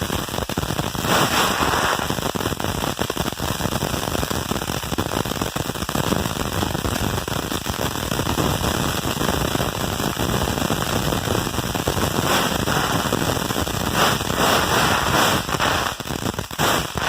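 Fireworks going off in a dense, continuous crackle of rapid small pops with a hiss behind them.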